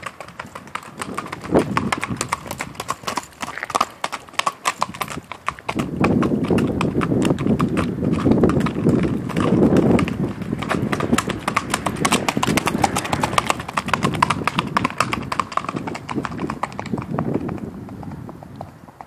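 Hoofbeats of a Saddlebred/Walking Horse cross being ridden at a quick gait on hard ground, a rapid clip-clop. It grows louder as the horse comes close and passes on the pavement, then fades as it moves away near the end.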